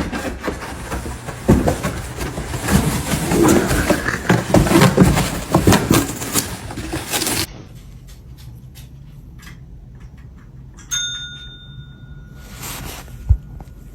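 Clattering, rustling noise with many knocks, then after a sudden drop in level a single metallic ding about eleven seconds in that rings for a second and a half, followed by a short thump near the end.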